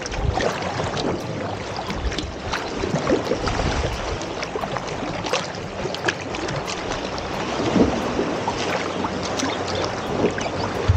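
Sea water splashing and lapping around a kayak, with scattered small knocks and clicks throughout.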